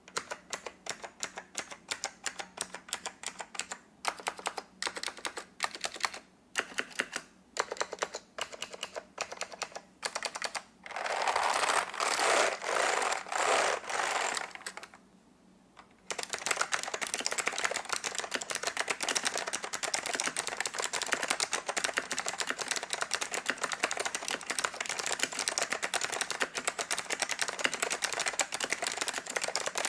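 Typing on a vintage DTK MBK-1013 mechanical keyboard with Alps SKCM White switches, each keystroke a sharp plastic click. At first the keystrokes come one by one; a louder, denser run follows, then a short pause, then fast continuous typing.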